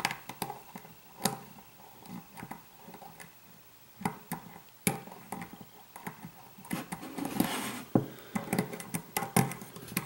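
Hook pick scraping and clicking against the pins of a challenge lock held under tension: irregular small clicks and scrapes, with sharper clicks about four and eight seconds in.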